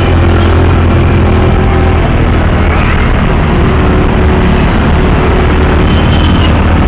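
Small boda boda motorcycle taxi engine running steadily while riding through dense city traffic, with loud, constant road and traffic noise and a heavy low hum.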